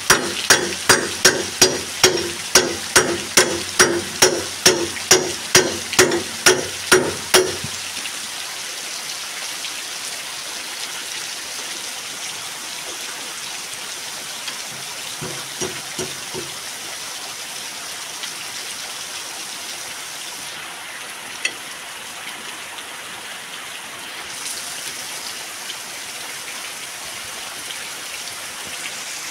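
A hammer knocking a stuck steel blade loose from a VST Shakti 130 DI power tiller's rotor: a steady run of ringing metal blows, about two and a half a second, stopping about seven seconds in. Steady rain follows.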